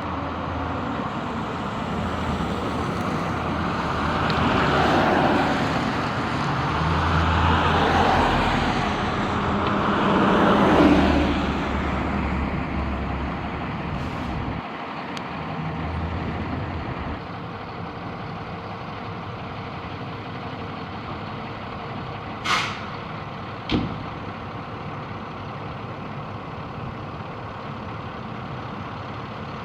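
A heavy vehicle passing, its engine and tyre noise swelling and fading over the first dozen seconds. Then a fire engine idles with two short hisses of its air brakes, about two-thirds of the way through.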